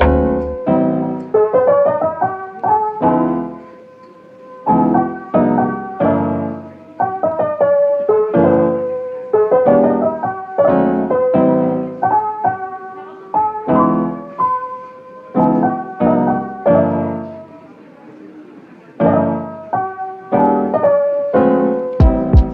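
Background piano music: a slow melody of struck notes and chords left to ring out, thinning twice into quieter stretches.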